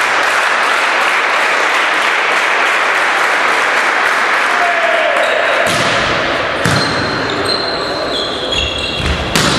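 Volleyball rally in a gym. A steady wash of hall noise with voices comes first. About six seconds in the ball is struck with a smack, then hit again a second later, sneakers squeak on the court floor, and a hard spike lands near the end.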